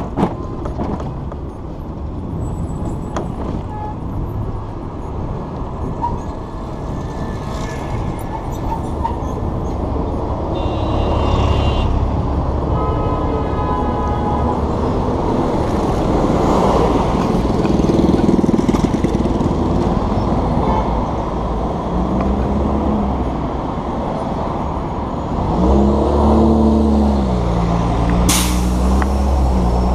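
City street traffic: vehicle engines running with a steady rumble, and a brief high-pitched squeal around the middle. In the last few seconds a heavy vehicle's engine pulls away, its pitch rising and dropping, with a sharp hiss shortly before the end.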